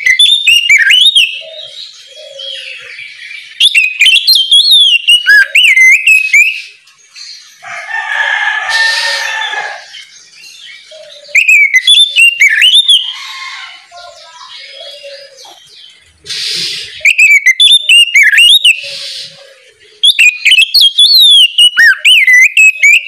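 Oriental magpie-robin singing loud, varied, fast-changing whistled phrases in bursts of a couple of seconds, broken by harsh rasping calls, the longest about eight seconds in.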